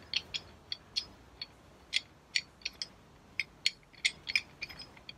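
Light, irregular metallic clicks and ticks as a pulling hook is screwed by hand onto the threaded end of a steel slide hammer.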